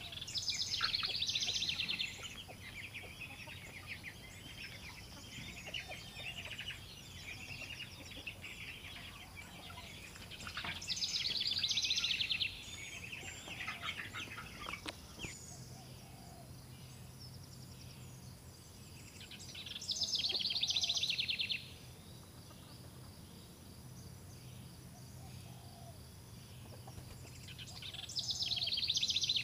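A flock of young chickens peeping and chirping, with a louder stretch of peeping about every nine seconds, four times in all.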